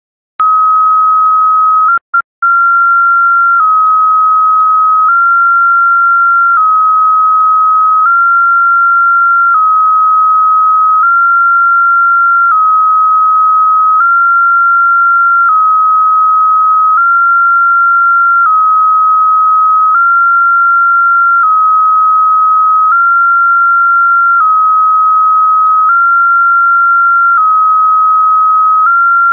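JT65 digital-mode transmit audio for a 144 MHz moon-bounce contact: a steady tone switching back and forth between two pitches about every one and a half seconds, the pattern of a JT65 shorthand message. It starts about half a second in, with a brief gap near two seconds.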